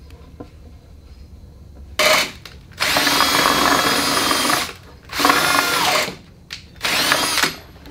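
Cordless drill working into a heavy wooden frame timber in four separate runs, its motor pitch winding up and falling off with each run. The first two seconds hold only faint handling sounds.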